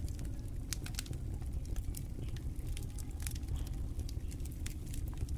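Open fire in a clay stove crackling, with irregular sharp pops over a steady low rumble.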